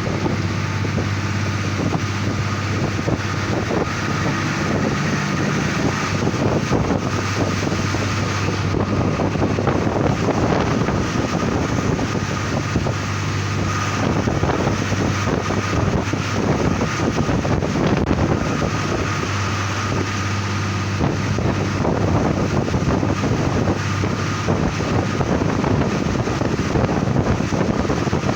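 A 1990s ADe diesel railcar running on narrow-gauge track, heard through an open window: a steady engine drone over the rumble and clatter of the wheels, with wind buffeting the microphone. A thin high whine comes and goes.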